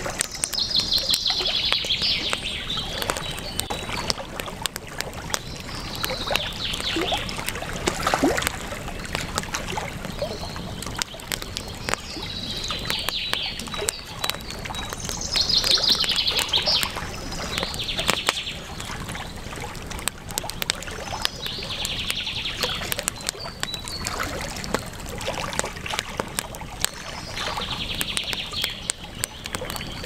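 Songbirds singing short trilled phrases every few seconds over the steady crackle of a campfire and the rush of river water.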